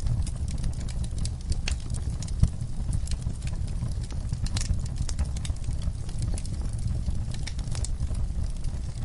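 Wood fire crackling in a fireplace: irregular sharp pops and snaps over a steady low rumble of the flames, with one louder pop about two and a half seconds in.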